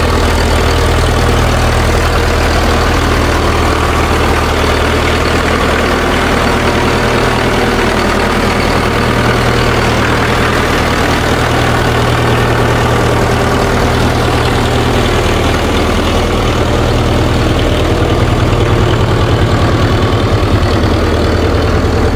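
International B275 tractor's four-cylinder diesel engine idling steadily.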